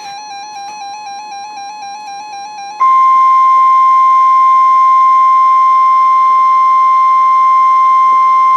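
A warbling electronic tone, its pitch wobbling about five times a second. About three seconds in it gives way to a loud, steady single tone: the 1050 Hz NOAA Weather Radio warning alarm tone that comes before a warning message.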